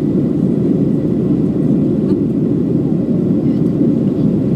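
Steady cabin drone of a Boeing 737-700 in flight after takeoff: engine and airflow noise heard inside the passenger cabin, a low, even rumble.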